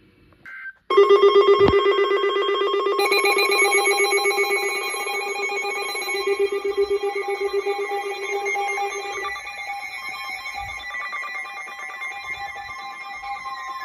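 Weather alert radio sounding its alarm for an incoming warning: a loud, rapid electronic trill on several tones at once. It starts about a second in and slowly fades, and a falling tone glides in near the end.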